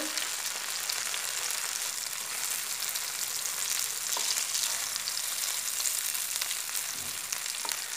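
Spinach-leaf and chana-dal rolls (palak vadi) frying in a little oil in a pan, a steady sizzling hiss with fine crackle. A wooden spatula knocks lightly against the rolls and pan about halfway through and again near the end.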